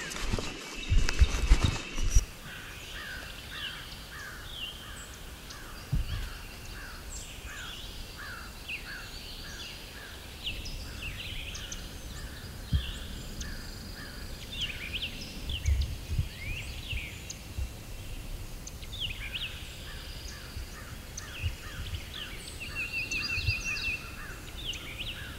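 Many songbirds singing together in a dawn chorus: overlapping short chirps and quick whistled notes, with a few low thumps, the loudest in the first two seconds.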